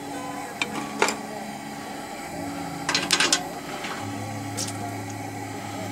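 Metal tongs clinking against a cast iron griddle on a Coleman camp stove as the griddle is gripped and shifted to spread its oil: a couple of sharp clicks, then a quick rattle of several clinks about three seconds in, and a few more after.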